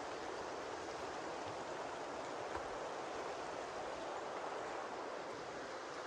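A steady, even rushing noise that does not change.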